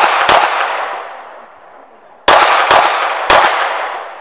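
Pistol shots fired in quick series, each sharp crack trailing off in a long echo. Two shots come right at the start, then three more in quick succession about two seconds in.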